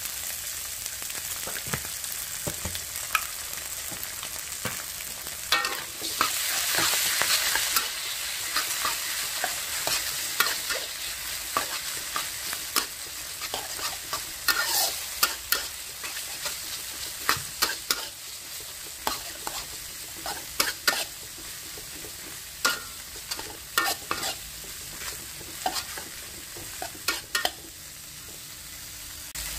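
Vegetables and tomato sauce sizzling in a hot wok while a metal spatula stirs and scrapes them, knocking against the pan in many sharp clicks. The sizzle is loudest about six to eight seconds in.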